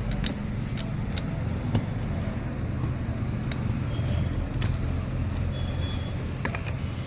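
Steady low rumble of a motor vehicle running nearby, with scattered light clicks and taps.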